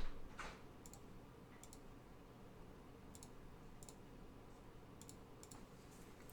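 Faint, irregular light clicks and taps of trading cards being handled, with a slightly louder handling sound at the very start.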